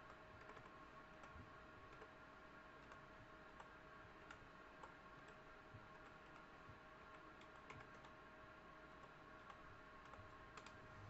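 Faint computer keyboard typing: scattered, irregular key clicks over a faint steady tone.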